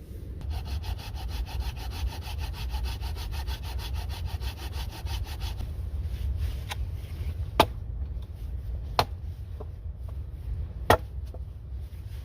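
Hand saw cutting through a wet log in quick, even strokes that stop about halfway through. Then a few sharp wooden knocks follow, about a second apart. A steady low wind rumble lies underneath.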